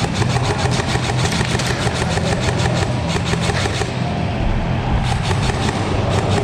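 Airsoft gun firing rapid full-auto bursts of about nine shots a second, stopping a little before four seconds in and resuming for another burst about five seconds in, over a steady low hum.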